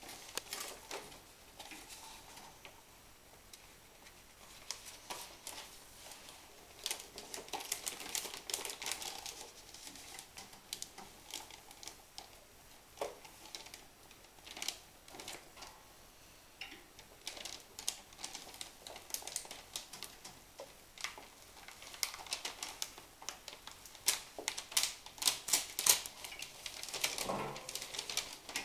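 Laminating film and backing paper crackling and rustling as they are peeled and handled on a hand-cranked cold roll laminator, with rapid dry clicks in bursts, busiest near the end.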